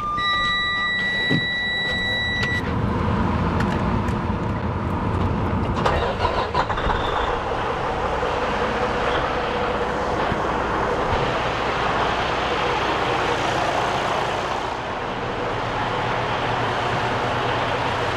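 Freightliner Cascadia's diesel engine started and running at a steady idle, with a high electronic warning beep from the truck during the first couple of seconds.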